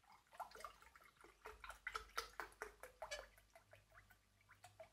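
Faint glugging and splashing of milk poured from a carton into a glass: a quick run of small liquid plops and gurgles.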